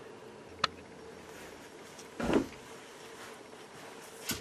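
Small handling noises from work on computer parts: a sharp click about half a second in and a short muffled knock a little after two seconds, over quiet room tone.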